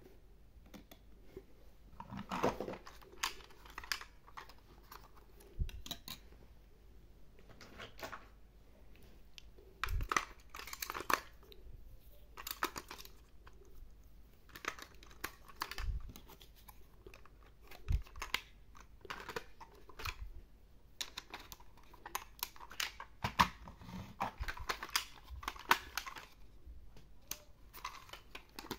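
Hands handling a plastic toy robot car and its cardboard box, with scattered small clicks, taps and rustles as AA batteries are fitted into the car's plastic battery compartment.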